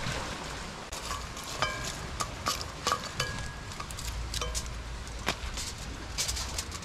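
A metal bowl being handled and aluminium foil crimped over it: scattered clicks and a few short metallic clinks, with crinkling foil and rustling dry leaves.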